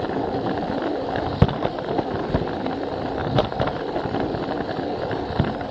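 Plarail toy train running along plastic track, a steady rattling rumble of its motor and wheels with a few sharp clicks, as at rail joints.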